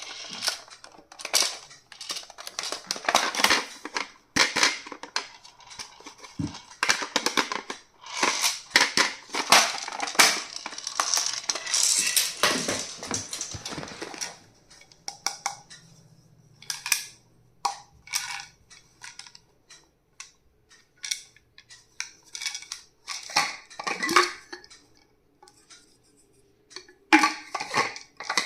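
Stationery items and their packaging being handled: dense rustling and clicking for the first half, then scattered clicks and taps with short pauses.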